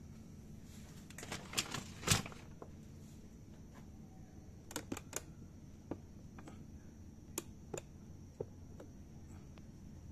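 Scattered light clicks and taps of handling at irregular spacing, with a few louder ones bunched together about one to two seconds in. There is no even stitching rhythm: the sewing machine is not running.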